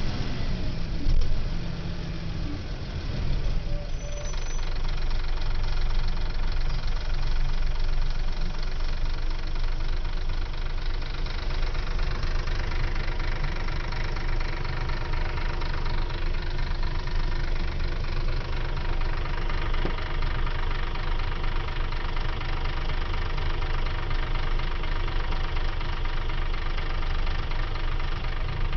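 Scania L94UB bus diesel engine idling steadily with a knocking diesel clatter; the first few seconds are a little uneven before it settles.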